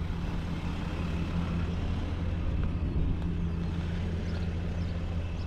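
Pickup truck engine idling with a steady, even low hum.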